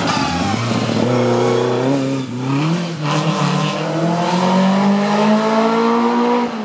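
NSU TT-type race saloon accelerating away under full throttle. The engine pitch climbs, drops for two quick upshifts about two and three seconds in, then rises steadily for a long stretch.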